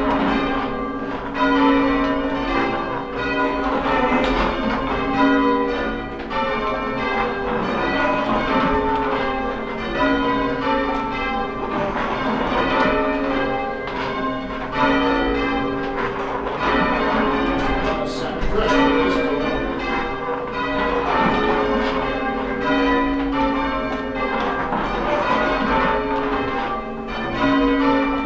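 A ring of church tower bells rung in sequence, struck one after another in continuous rows, each note ringing on over the next.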